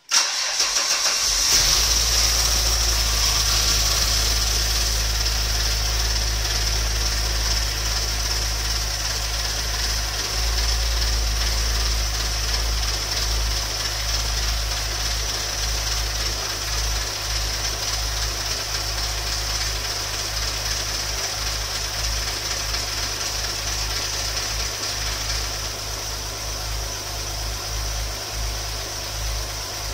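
Alfa Romeo 166's 3.0 V6 Busso engine starting for the first time after a rebuild: a brief crank that catches about a second and a half in, then a steady fast idle that slowly settles and quietens. A steady high hiss runs along with it.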